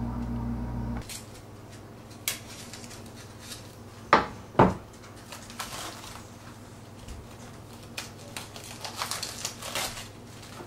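A steady low hum cuts off about a second in. Then come two sharp knocks half a second apart and lighter clicks and crinkling as plastic-wrapped foam meat trays are handled on a kitchen counter.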